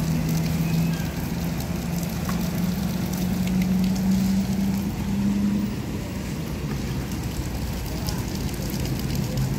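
Coach bus diesel engine pulling slowly away, its note rising steadily for about six seconds and then easing off, with tyre hiss on the wet road.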